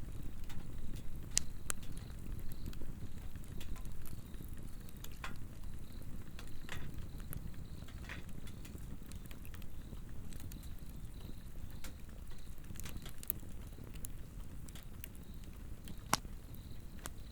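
Swedish torch (a vertically slit burning log) with a steady low rumble of flame and scattered crackles and pops, one sharp pop near the end. Insects chirp in a faint, even, high-pitched pulse behind it.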